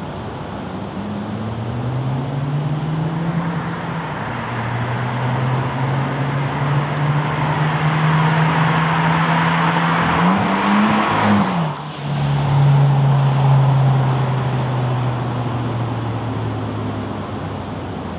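2018 Subaru WRX's turbocharged flat-four, breathing through a Greddy GPP RS cat-back exhaust, driving up the road and passing close by. The engine note climbs, dips about four seconds in, then holds. Tyre noise builds, and the pitch drops sharply as the car goes by near the middle, then fades away.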